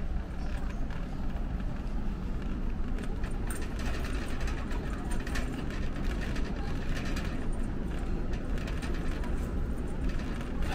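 Warehouse store ambience: a steady low rumble with indistinct shoppers' voices and scattered clicks and rattles.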